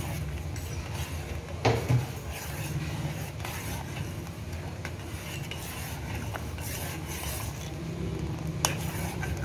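Steel spoon stirring sugar into just-boiled milk in a steel pot, scraping and clinking against the pot, with a sharper knock about two seconds in and another near the end, over a steady low rumble.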